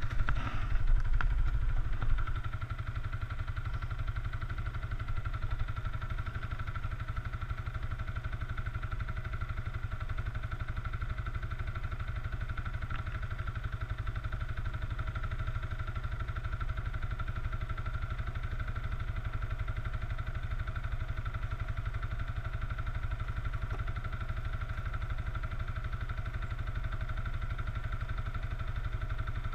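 ATV engine idling steadily, with a louder, rougher rumble for the first two seconds.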